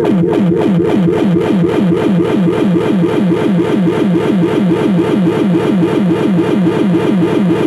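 Ekoplasm dub siren synth playing a fast repeating siren: a pitched tone falling in a quick swoop about five times a second, over and over without a break, played through a small portable speaker.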